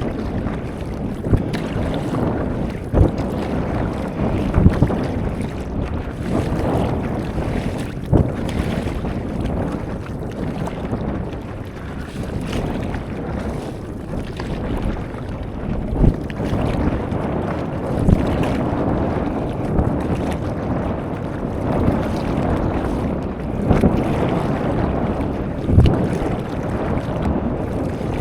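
Wind buffeting the microphone over moving sea water, with a short knock or splash every few seconds.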